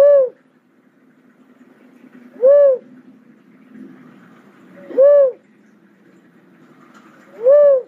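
Cuckoo-dove calling: a single short coo that rises and falls in pitch, repeated evenly about every two and a half seconds, four times.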